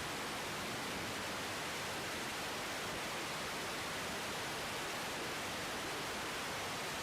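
Steady, even hiss of radio static on the air traffic control feed, with no transmission on the frequency.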